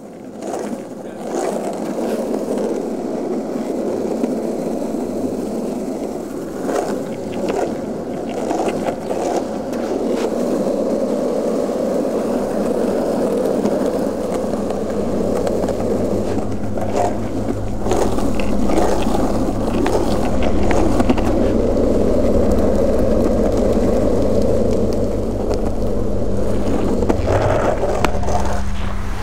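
Longboard wheels rolling on pavement: a continuous rough rumble with scattered sharp clacks. A steady low hum joins about halfway through.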